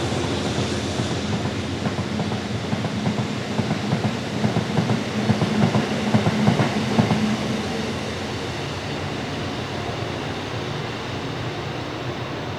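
Freight train's wagons rolling past, wheels knocking and clattering over the rail joints, over a steady low drone. The clatter is loudest in the middle and settles to a steadier, quieter rumble in the second half.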